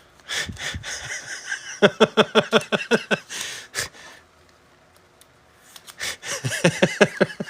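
A man laughing in two bursts of quick, even 'ha-ha' pulses, the first about two seconds in and the second near the end.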